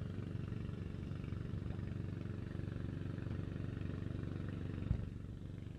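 A vehicle engine idling steadily, with a single sharp click near the end, after which the hum drops a little.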